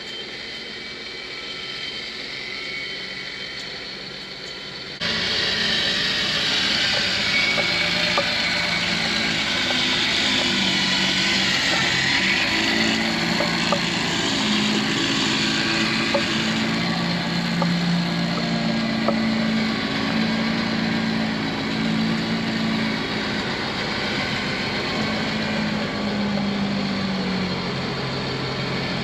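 Pickup truck engine running at idle; about five seconds in, the Super Winch LP 8500 electric winch starts hauling a heavy white oak log and runs on under strain, its low hum shifting in pitch as the load changes.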